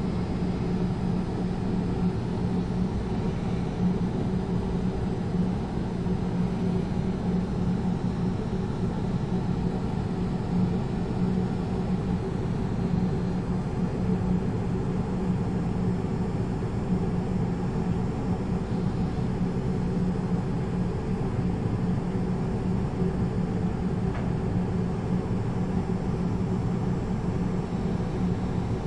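Steady low machine drone: a constant hum with a hiss over it that does not change.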